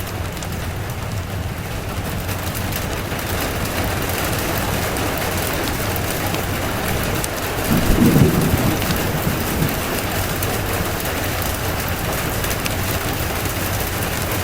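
Steady rain falling, with a short low rumble of thunder about eight seconds in.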